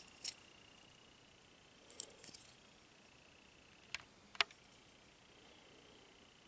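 Faint clicks and light clatter of small plastic model-kit engine parts being picked up and turned in the fingers: a couple at the start, a short cluster about two seconds in, and two sharper clicks a little after four seconds.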